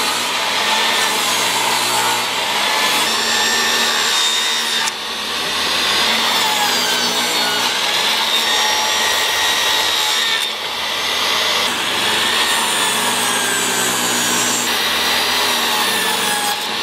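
Portable table saw running and ripping pressure-treated decking boards into strips, a steady motor whine with the blade cutting through the wood. The level dips briefly about five seconds in and again about ten and a half seconds in.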